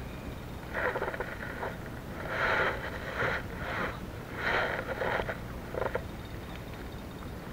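Spinning reel being cranked in short bursts, several spells of winding each lasting about half a second to a second, as line is retrieved.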